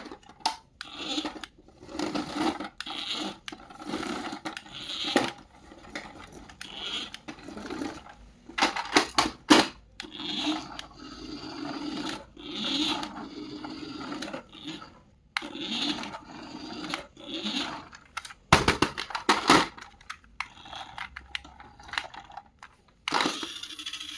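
Toy packaging and parts being handled: irregular rustling and scraping of plastic and cardboard, with many sharp clicks and snaps, a quick cluster of them near the end.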